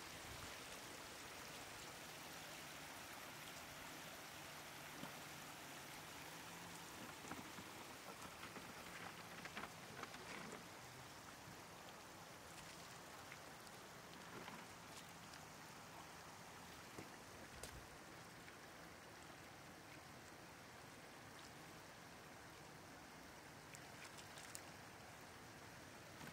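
Faint, steady rush of shallow water flowing across a road, with a few brief splashes.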